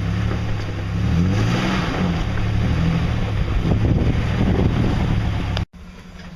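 Off-road 4x4's engine revving up and down as it works over rock. The sound cuts off abruptly near the end.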